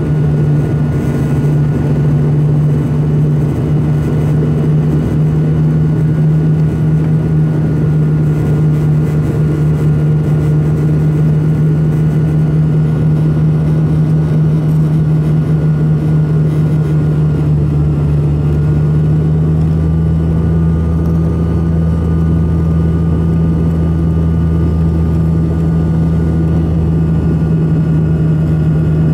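Steady drone of an ATR 42-300's twin Pratt & Whitney PW120 turboprop engines and propellers heard inside the passenger cabin during descent. About two-thirds of the way through, the drone shifts and its deepest part grows louder, a change in engine and propeller power.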